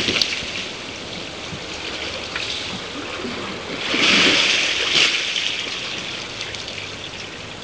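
Hot tub water sloshing and splashing as a man moves about in it, with a louder splash about four seconds in.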